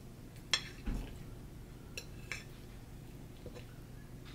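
A metal fork clinking against a ceramic plate: four sharp clinks in the first two and a half seconds, the loudest about half a second in, one of them joined by a dull knock.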